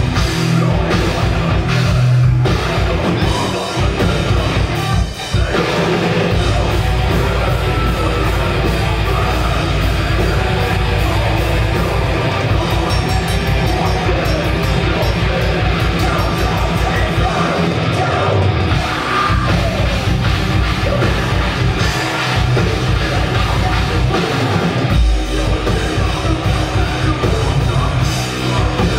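Death metal band playing live: heavily distorted guitars and fast drumming with rapid bass-drum strokes, with shouted vocals over the top. The music breaks off for a moment about five seconds in.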